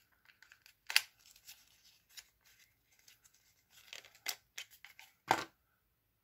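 Packaging of a liquid lipstick being handled and opened: scattered crinkling and tearing with sharp clicks, the loudest about a second in and again near the end.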